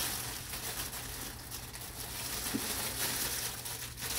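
Paper gift bags and tissue paper rustling and crinkling irregularly as hands unpack them.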